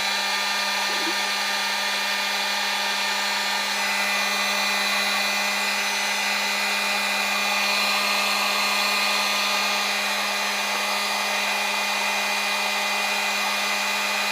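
Drill Master dual-temperature heat gun running steadily: an even fan-motor hum with a few fixed tones over the rush of hot air.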